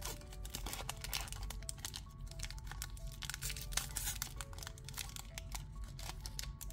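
A Magic: The Gathering booster pack's wrapper being torn open and crinkled by hand: a dense run of quick crackles that thins out near the end. Soft background music with held notes plays underneath.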